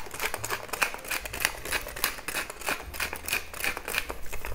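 Pepper mill grinding black peppercorns: a quick, even run of crunching clicks, about five a second, that stops near the end.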